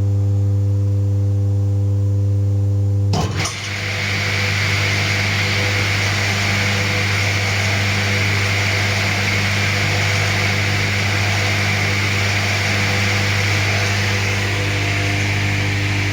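Startrite table saw running with a steady electric motor hum. About three seconds in, after a click, a louder steady rushing noise starts over the hum and holds.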